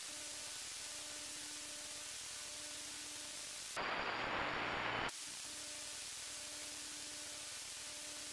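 Steady static-like hiss with a faint low hum. About four seconds in, a louder rushing noise breaks in for about a second and then cuts off sharply.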